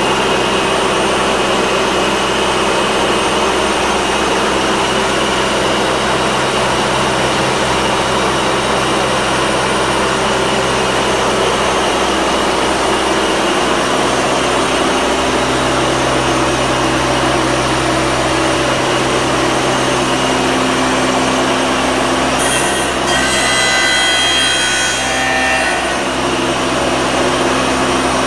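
Robotic casting-grinding cell running: a steady loud machine drone with hum. From about 22 seconds in, there are a few seconds of louder, higher-pitched screeching grinding as metal meets the wheel.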